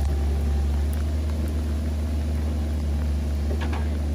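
Compact excavator's diesel engine running with a steady low drone as the machine works its way up a steep slope, with a couple of faint clanks near the end.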